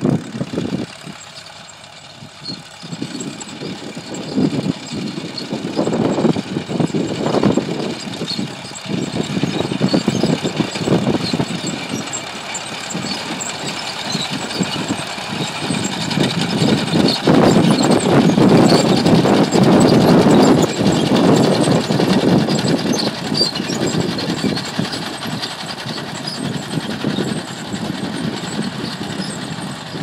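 Caterpillar D4 7U crawler tractor's four-cylinder diesel engine working under load while pulling a plough. It is quieter for the first few seconds, loudest a little past halfway, then eases off.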